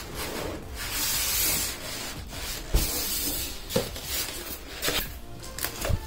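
Polystyrene foam packing scraping against cardboard and plastic wrapping rustling as packaging is handled, with a few light knocks.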